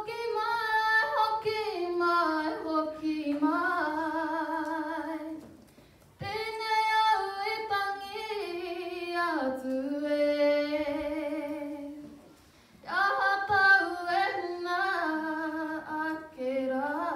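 A woman singing unaccompanied into a handheld microphone, in three long phrases with two short breaks between them.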